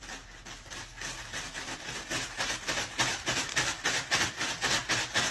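A cat batting rapidly and repeatedly at a plastic bag, giving a rhythmic crinkling rustle of about five swipes a second that grows louder.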